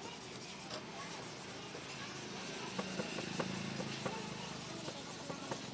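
An engine hums for a couple of seconds in the middle over steady background noise, with a few light clicks.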